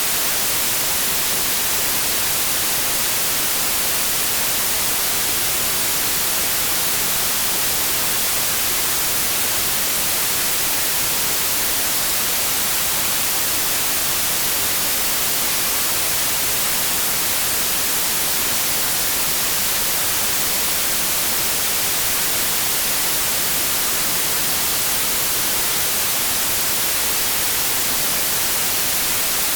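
Steady white noise: an even, unbroken hiss, strongest in the high range.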